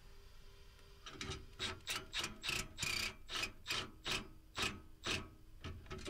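Cordless drill-driver running the flame sensor's single mounting screw back into a gas furnace's burner assembly, in about a dozen short, even bursts, two or three a second, starting about a second in.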